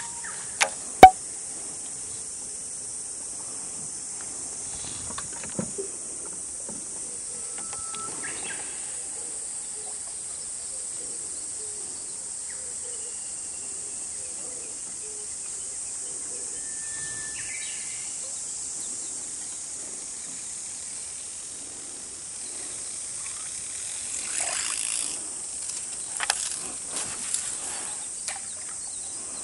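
Steady high insect buzz from the summer woodland around the water, with a few short bird calls. A sharp click about a second in is the loudest sound, and a run of small clicks and rustling comes near the end.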